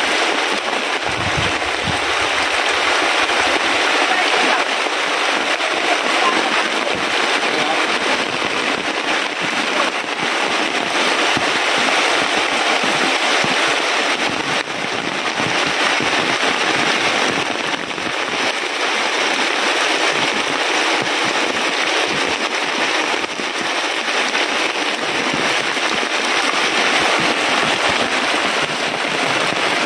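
Heavy rain falling steadily in a dense, even hiss.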